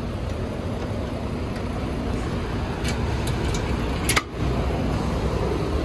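Steady low rumble of truck engines, with a few light metal clicks and then a sharp clank about four seconds in as a container chassis twist-lock pin handle is lifted and pulled to unlock it.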